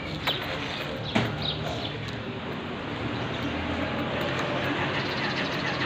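Steady low outdoor background rumble, like distant traffic, with two sharp clicks in the first second or so.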